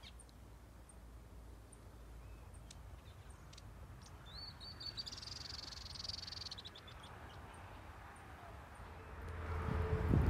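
Quiet open-air ambience with faint high bird chirps and ticks about twice a second, and a brief hiss around the middle. Near the end a low engine rumble with a steady hum starts to swell.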